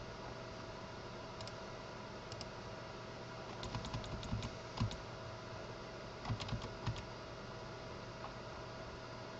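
Computer keyboard keystrokes in two short bursts, about four seconds in and again near seven seconds, over a steady hum and hiss.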